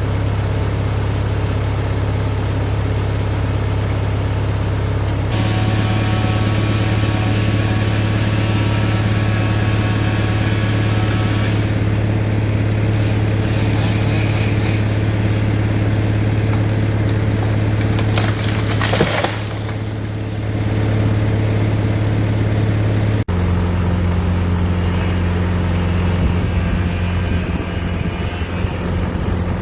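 An engine running steadily at constant speed, its note shifting about five seconds in; a brief rushing noise comes around two-thirds of the way through, and the sound switches abruptly to a different, deeper engine note a few seconds later.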